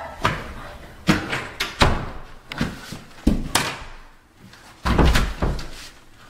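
An interior door being banged and handled: a run of knocks and thuds, then a heavier, deeper bang about five seconds in.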